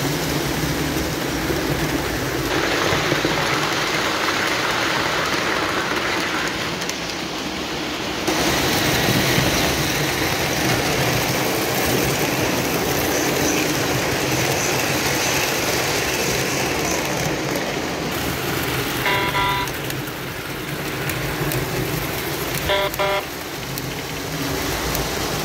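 Lionel O-gauge model trains running on tubular three-rail track: a steady rumble of metal wheels on the rails. A diesel locomotive's electronic horn sounds in short blasts about three-quarters of the way through and again a few seconds later.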